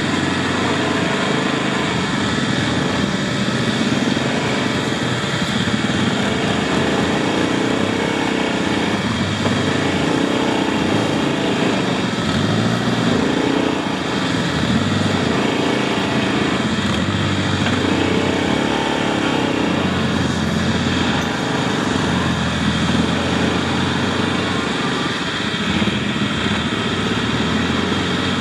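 ATV engine running while riding a dirt trail, its note rising and falling every few seconds as the throttle is worked, over a steady hiss.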